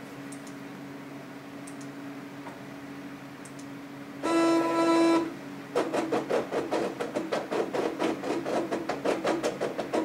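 Cricut electronic cutting machine starting a cut: after a few seconds of faint hum, its motor gives a steady whine for about a second, then the blade carriage runs in rapid, even whirring pulses, several a second, as it cuts heavy cardstock.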